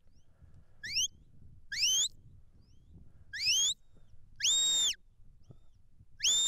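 A shepherd's handler whistling commands to a working border collie. There are five sharp, high whistle blasts: the first three rise in pitch, the fourth is held longer and level, and the fifth comes near the end.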